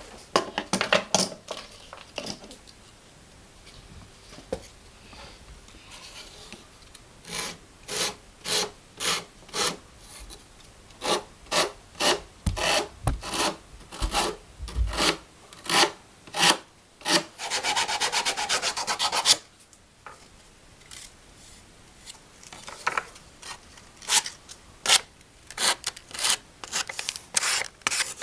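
Hand saw cutting wood in repeated back-and-forth strokes, roughly two a second, with a quicker unbroken run of strokes about two-thirds of the way through.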